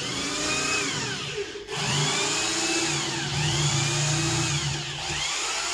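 Corded electric drill boring a starter hole through 3/4-inch marine plywood, the entry hole for a jigsaw. The motor's pitch rises and falls as the bit bites; it stops briefly about a second and a half in, then runs on and eases off near the end.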